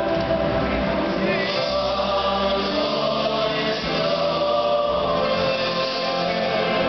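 A live band playing Hasidic Jewish pop music, keyboards and drum kit, with several voices singing together.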